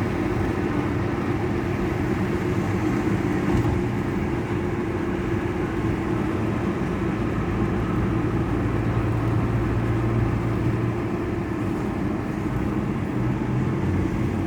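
Steady running noise of a moving road vehicle, with a low engine hum that strengthens for a few seconds past the middle and again near the end.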